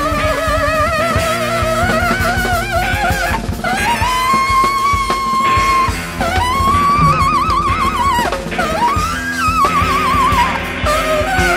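Instrumental jazz trio recording of saxophone, electric guitar and drum kit. A lead melody line wavers and slides in pitch over busy drumming, rising into a long held note about four seconds in.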